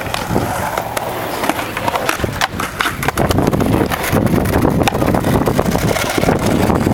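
Skateboard wheels rolling over concrete ramps: a continuous low rumble, dotted with scattered clacks and knocks of boards.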